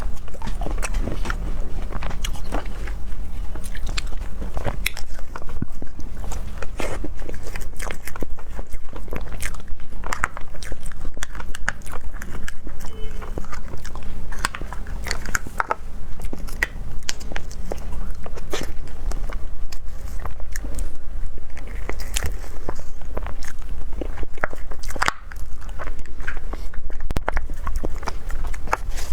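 A person biting and chewing food, with many irregular wet clicks and small crunches from the mouth.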